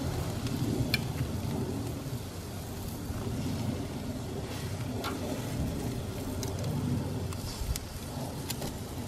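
Raw chicken pieces sizzling on a hot perforated grill pan on a gas grill, under a steady low rush. Metal tongs give a few light clicks against the pan.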